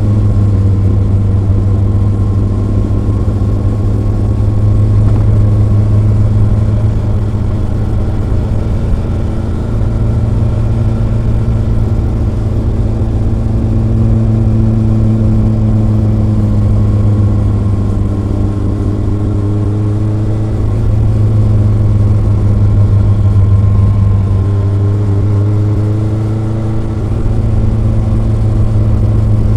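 Kawasaki ZRX inline-four motorcycle engine and exhaust running steadily while riding. Twice in the second half it rises in pitch under acceleration and drops back sharply, as at a gear change.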